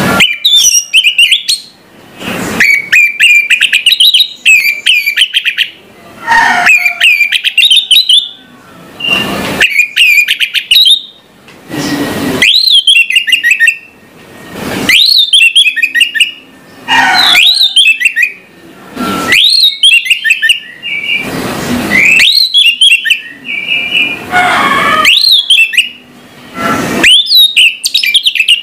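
Orange-headed thrush (anis merah) singing loudly in repeated phrases about two seconds long with short pauses between, each a quick run of warbled trills and sweeping whistles.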